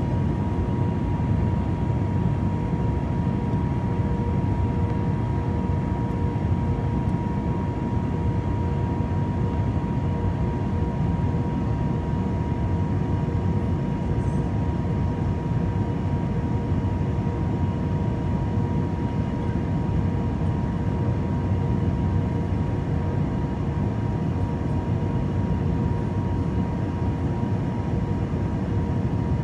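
Steady cabin noise of an airliner descending on approach, heard inside the cabin at a window seat over the wing: an even low rumble of engines and airflow with a faint steady hum above it.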